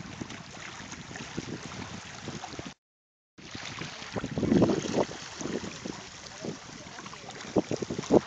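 Wind buffeting the microphone in irregular low gusts over a steady outdoor hiss, with stronger gusts in the second half. The sound cuts out completely for about half a second around three seconds in.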